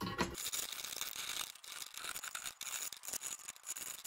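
Rapid back-and-forth scratching and scrubbing on an aluminium oil sump as old sealant is cleaned off by hand. It runs as a steady string of quick, uneven strokes.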